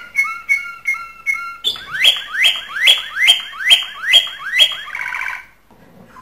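Domestic canary singing its mating song: a few repeated two-note whistled syllables, then a louder run of rising whistled sweeps about two a second, ending in a fast trill and a brief pause near the end.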